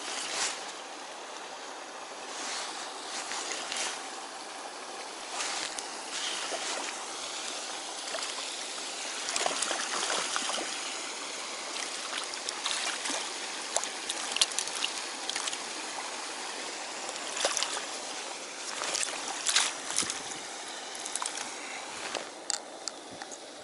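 Water running steadily, with short louder splashes scattered throughout.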